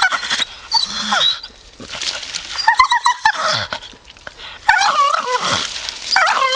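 Staffordshire bull terrier grumbling and whining in three short runs of rising and falling vocal sounds, with brief pauses between them.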